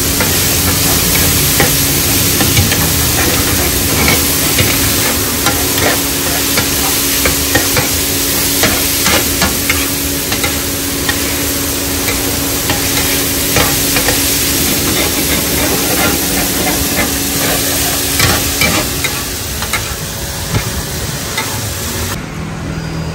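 Food frying and sizzling on a hot pan while it is stirred, with repeated scrapes and clinks of a utensil against the metal. A steady hum runs underneath for most of it, and the sizzling drops away abruptly near the end.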